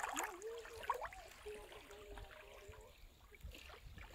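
Shallow seawater lapping and trickling, with a few small splashes and clicks in the first second, under a faint wavering tone in the background.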